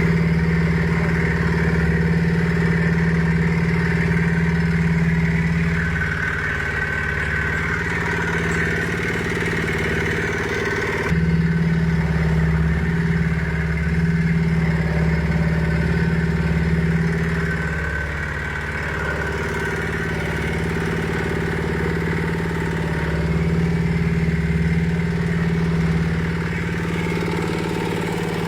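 Engine driving a 200 kg livestock feed mixer, running steadily at an even speed.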